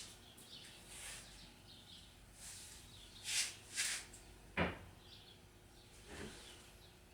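Faint scraping and shuffling handling noises, a few short swishes, with one sharp knock about four and a half seconds in and a softer knock about a second later.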